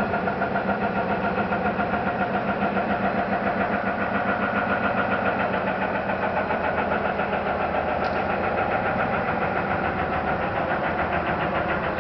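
An unidentified droning rumble, engine-like and steady, throbbing about five times a second. It is the mystery night-time noise whose source the listener cannot locate.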